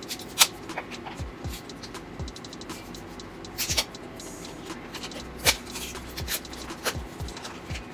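Long fingernails picking and prying at a small printed cardboard cosmetics box, giving irregular scratching with sharp paper snaps and clicks, the loudest about half a second in, near four seconds and about five and a half seconds in. The box is stiff and hard to get open.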